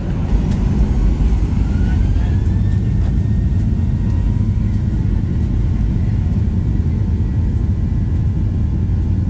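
Jet airliner engines heard from inside the cabin at the start of takeoff: a loud, steady low rumble, with a faint whine that rises about two seconds in and then holds steady.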